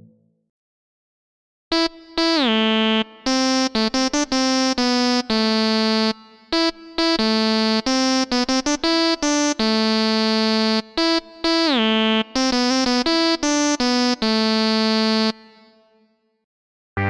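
Monophonic Minimoog-style synth lead from IK Multimedia Syntronik's sampled Minimod library, playing a phrase of short, choppy notes and held notes. Some notes glide down in pitch into the next. It starts about two seconds in and stops a little before the end.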